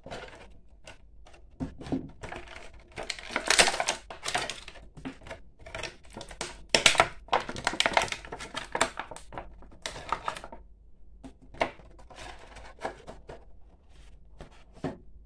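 Clear plastic blister packaging crinkling and crackling in irregular bursts as it is handled and pulled apart by hand, thinning to a few lighter taps and rustles near the end.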